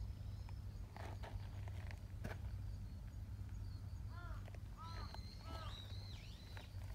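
Outdoor ambience with birds calling: several short arched chirps in quick groups about halfway through, then a high whistled call with a dip near the end, over a low steady rumble and a few soft clicks.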